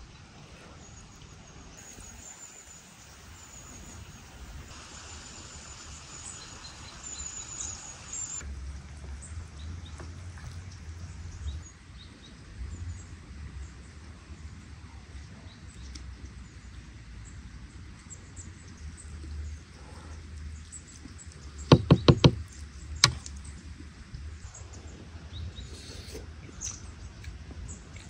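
Outdoor background with small birds chirping faintly. About three-quarters through comes a quick run of four sharp knocks, then a single knock a second later.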